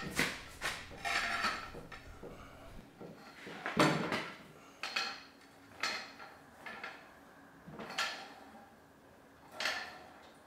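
A series of separate metallic knocks and clanks, about one every second or two, the loudest about four seconds in, from a car's fuel tank and the jack under it as the tank is raised into place.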